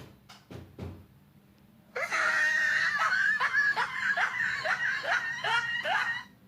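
A few short knocks, then about two seconds in a burst of rapid, high-pitched laughter: about ten quick laughs, some two and a half a second, cut off abruptly near the end.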